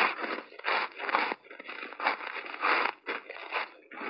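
Close-miked chewing of frozen ice balls coated in matcha powder: a quick, uneven series of crisp crunches, about two to three a second.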